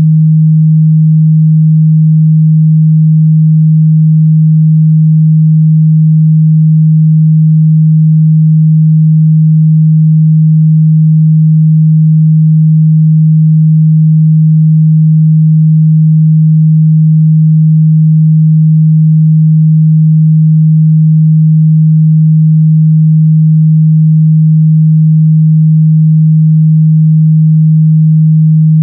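A steady 157 Hz sine-wave test tone, a single pure low hum held at a constant loud level, used to check the mid-bass response of speakers and headphones.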